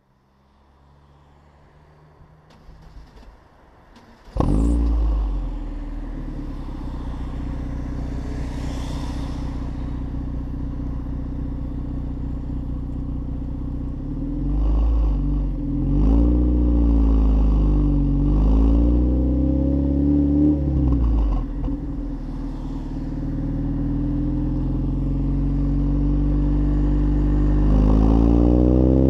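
Lotus Elise S1 111S four-cylinder engine breathing through a decat and a Bell & Colvill exhaust: a few faint clicks, then it fires up suddenly about four seconds in and settles to a steady idle. It is then blipped several times, rising and falling, and revved higher near the end.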